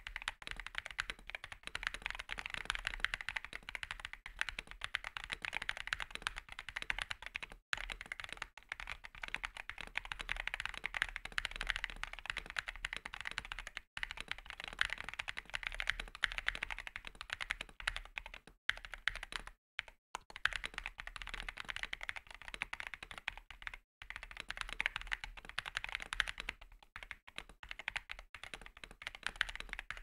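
Fast, continuous typing on a 60% mechanical keyboard, an Epomaker Mini Panda 64 with tactile MMD Holy Panda switches and thick PBT keycaps: a dense stream of key clacks, interrupted by a few very short silent breaks.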